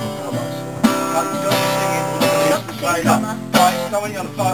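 Acoustic guitar strumming chords in a regular rhythm, each strum ringing on until the next.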